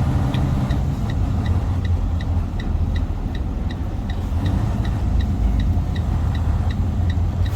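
2017 Freightliner truck's diesel engine running with a steady low hum heard from inside the cab, with a turn signal ticking evenly about three times a second.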